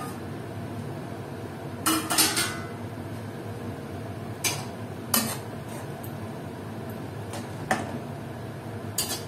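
A metal spoon knocks and scrapes against a metal kadhai as the simmering tomato chaat is stirred: a cluster of clinks about two seconds in, then single knocks every second or two over a steady low hiss.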